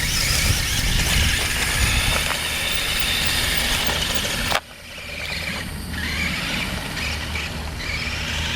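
Toy remote-control monster truck running over grass, a steady noisy whir with a heavy low rumble. The sound cuts off abruptly about four and a half seconds in and resumes a little quieter.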